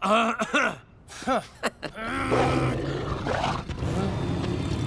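A giant cartoon mutant dog growling, a deep, rough growl that starts about two seconds in and keeps going. Before it come a few short voice-like sounds.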